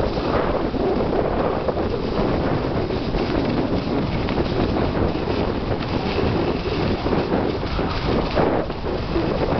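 Rushing wind buffeting the microphone of a camera carried by a skier on a downhill run: a loud, steady rush without a break.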